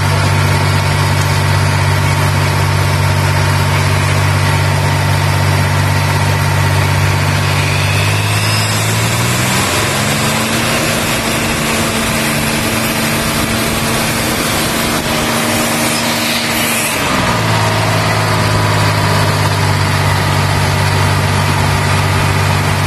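Two-stroke diesel engine of an Ingersoll-Rand portable screw air compressor running steadily. About eight seconds in it speeds up over a couple of seconds, holds the higher speed, then drops back to its earlier speed about seventeen seconds in, with a brief burst of hiss just as it slows.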